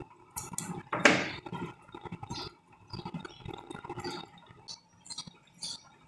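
Small scissors snipping enamelled copper winding wire, with a louder knock about a second in, then scattered light clicks and rustles as hands work a copper coil into a washing-machine motor stator.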